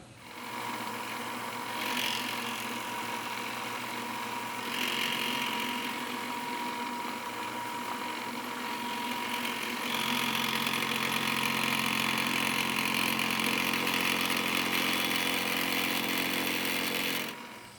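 Bridgeport milling machine spindle running with the cutter taking a light cleanup pass across the saw-cut face of a steel plate, shaving off layout dye. A steady hum and whine, with the cutting noise growing louder about two seconds in, again about five seconds in, and most around ten seconds in, then cutting off sharply near the end.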